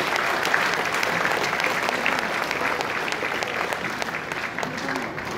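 Audience applauding, the clapping slowly thinning out toward the end.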